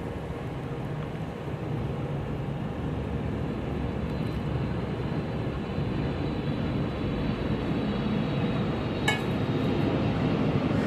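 Steady low rushing noise that slowly grows louder, with one sharp clink of a kitchen utensil about nine seconds in, while the hot spiced milk is being strained.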